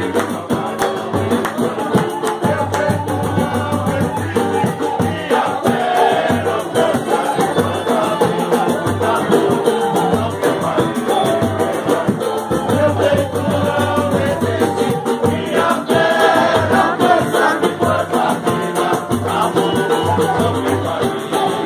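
Live samba played in a group: pandeiros jingling a fast steady rhythm over a hand drum, acoustic guitar and cavaquinho strumming, with several men singing together.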